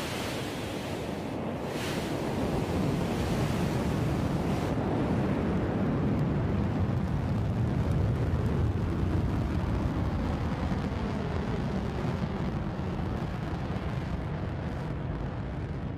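Blue Origin New Shepard rocket's BE-3 hydrogen-fuelled engine roaring through liftoff and climb-out: a loud, deep, steady rumble of rocket exhaust. Its high hiss thins out about five seconds in, and it slowly fades as the rocket climbs away.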